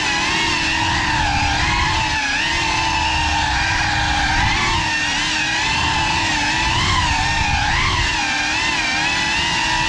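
FPV drone's motors and propellers whining, heard from on board, the pitch wavering up and down with the throttle as it flies.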